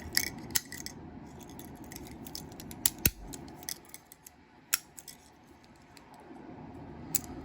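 Scattered sharp metallic clicks and clacks of a Master Lock No. 77 padlock being handled, its open shackle turned and knocking against the body.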